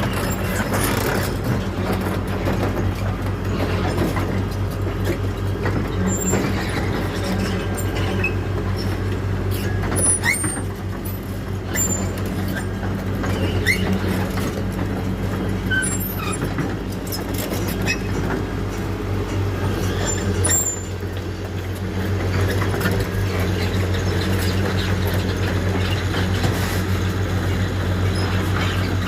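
Heavy diesel engine of a PC200 excavator running steadily under load while towing a pile-driving crane. A low, even drone runs throughout, with occasional short high squeaks and clicks.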